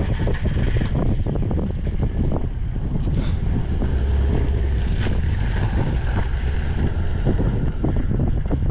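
Wind buffeting the microphone over a steady low rumble of a vehicle on the move, with uneven gusts and no break.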